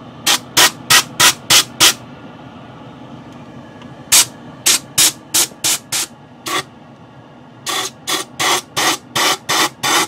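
Compressed-air blow gun fired in short blasts, about three a second, at a vacuum cleaner's pleated cartridge filter to blow out the dust. The blasts come in three runs with pauses between, over the steady hum of the paint booth's exhaust fan.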